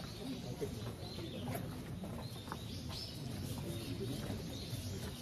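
Birds chirping and calling, a few short high calls over a steady low background murmur.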